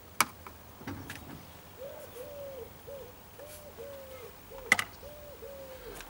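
A dove cooing in a steady run of low, repeated coos that starts about two seconds in. Two sharp clicks stand out above it, one just after the start and one about four and a half seconds in.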